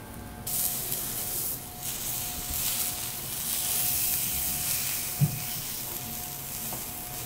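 Cuttlefish sizzling on a hot teppanyaki steel griddle, a steady hiss that starts about half a second in. One dull knock about five seconds in, as a knife slices the cuttlefish down to the plate.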